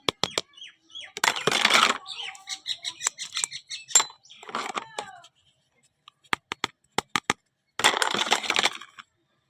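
Packaging being handled during an unboxing: two rustling bursts of about a second each, sharp clicks including a quick run of them, and short squeaks.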